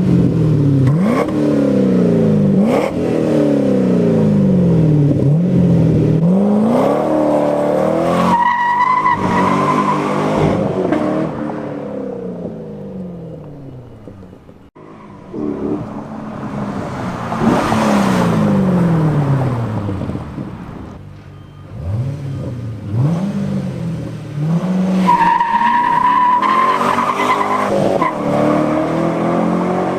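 C6 Corvette V8 through an SLP Loudmouth II exhaust, accelerating hard: the engine note sweeps up and drops back again and again, as at gear changes, in two loud runs with a short break about halfway. A brief high steady whine sounds twice, once in each run.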